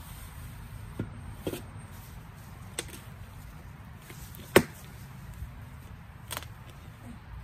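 A hand tool chopping into weeds and soil while clearing around lemongrass: about five sharp strikes at uneven intervals, the loudest a little past halfway.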